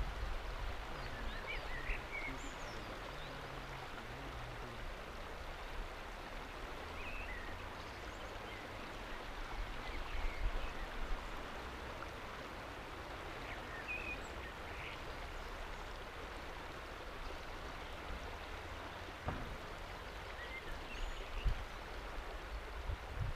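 River water flowing steadily and washing against a flat rock shelf, with a low rumble of wind on the microphone.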